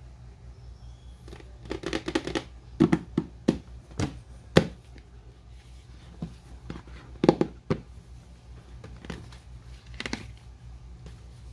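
Hands handling packaging during an unboxing: short rustles and a series of sharp clicks and knocks, the loudest about four and a half seconds in, over a steady low hum.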